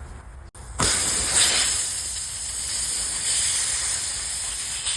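Pressurised air hissing steadily and loudly, starting just under a second in, during a tyre plug repair.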